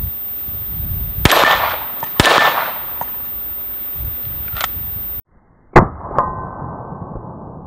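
9mm Glock pistol shots striking steel popper targets: two shots about a second apart, each with a short metallic clang from the plate. Later comes a louder shot and a knock, after which the steel plate rings on as a slowly fading tone.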